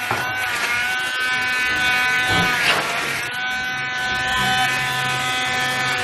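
Electric immersion hand blender switched on and running steadily as it purées vegetable soup to a creamy consistency. Its motor whine starts right at the beginning, dips slightly in pitch just after, and then holds steady.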